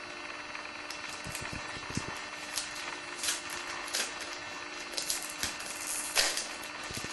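Trading cards being handled and flipped through, a run of irregular short rustles and slides of stiff glossy card, over a steady electrical hum.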